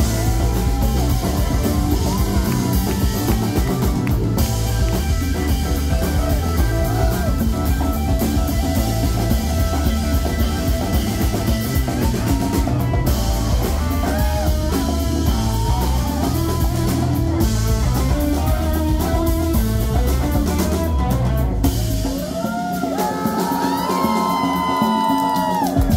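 Live rock band playing: an electric guitar solos with bent notes over drums and bass. About 22 seconds in, the drums and bass drop out and the guitar carries on alone with bent notes.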